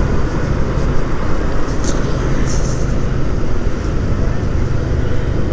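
Motorcycle engine running steadily at road speed while riding, under a steady rush of wind and road noise.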